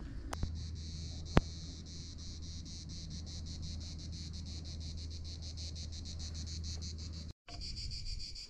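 Cicadas singing in rapid, even pulses over a low steady hum, with one sharp click about a second and a half in.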